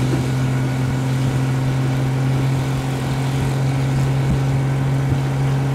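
Two-litre straight-six Triumph Vitesse engine running at steady cruising revs in an open roadster, with wind and road noise.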